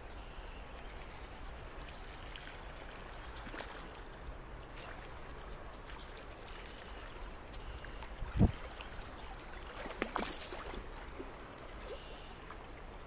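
Steady low rush of river water with small splashes and ticks. A sharp thump comes about eight seconds in, and a short burst of splashing about ten seconds in as a hooked smallmouth bass thrashes at the surface beside the bank and is grabbed by hand.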